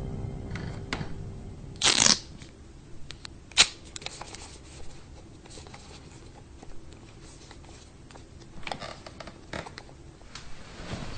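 Wall light switch being clicked in a quiet small room: a sharp click about three and a half seconds in, then a few fainter clicks and rustles. A short, louder rustling burst comes about two seconds in.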